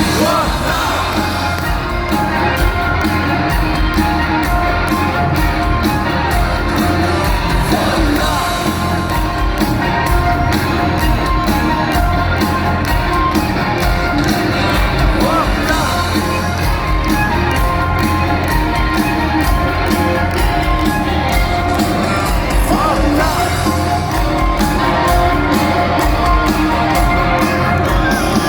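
Live rock band playing at full volume with singing and shouts from the crowd.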